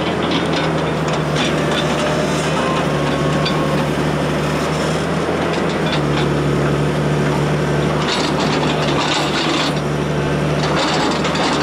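Indian Railways diesel locomotive working under power as it approaches at low speed, its engine a steady drone that holds one pitch. Clattering knocks from the wheels and track run over it, growing busier in the latter part.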